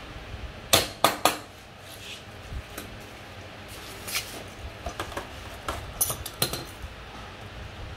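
Metal hand tools and small bolts clinking and clattering: three sharp clinks close together about a second in, then scattered lighter clinks.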